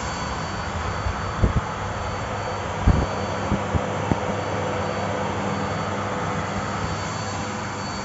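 Bosch BGS21X320 bagless cyclonic canister vacuum cleaner running steadily with a constant whine, with a few short low thumps between about one and a half and four seconds in.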